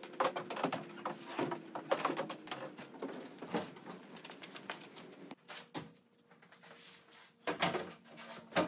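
Thin mahogany plywood sheets being handled and laid out on a wooden work table: irregular taps, knocks and scraping rustles, busiest in the first half and again in a cluster near the end.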